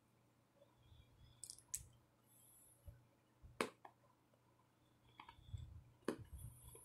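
Faint chewing of gingerbread: a few sharp mouth clicks and crunches, the loudest about three and a half and six seconds in, with soft low thuds of chewing between them.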